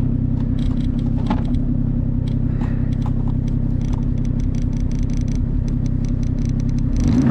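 Snowmobile engine running steadily under way, with scattered light clicks over the drone. Its pitch rises near the end as it speeds up.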